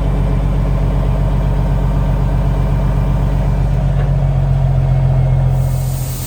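Semi truck's diesel engine idling steadily. A rising hiss comes in shortly before the end.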